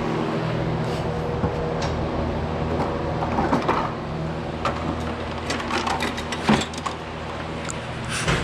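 A steady low mechanical hum with scattered clicks and knocks, the loudest about six and a half seconds in and again near the end.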